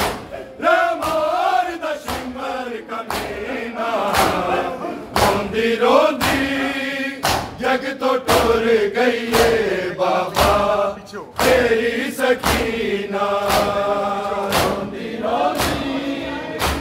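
A group of men chanting a Shia noha (lament) together, with crowd chest-beating (matam) keeping time: a sharp slap repeated a little under twice a second.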